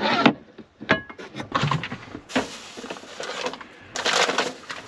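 A metal frying pan clatters as it is set down on a table, followed by small clinks and then rustling and shuffling as food is taken out of a cooler.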